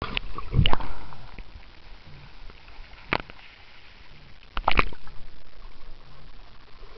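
Muffled water sloshing and gurgling as a camera moves through swimming-pool water, underwater and at the surface. A few sharp clicks cut through it, the loudest about half a second in and just before five seconds in.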